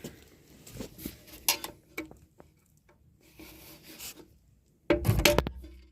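Metal hand tools clinking and scraping against the pop-up camper's lift crank gears and chain, with scattered small knocks and a cluster of sharp taps about a second and a half in. A brief louder burst comes near the end.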